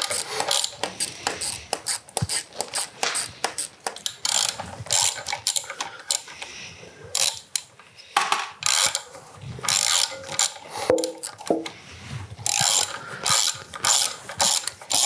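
Hand ratchet wrench clicking in quick bursts as a nut is worked loose, the pawl ratcheting on each back-stroke.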